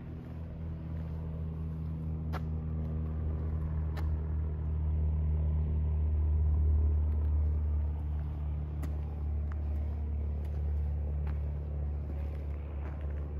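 A steady low engine rumble from an unseen engine running nearby. It grows louder toward the middle and eases slightly after, with a few faint clicks.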